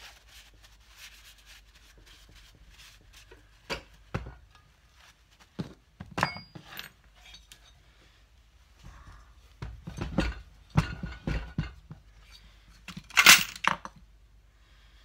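Knocks, clinks and rubbing as a motorcycle engine's aluminium crankcase and finned barrels are handled and shifted on a wooden workbench, with a brief sharp noise, the loudest of the lot, near the end.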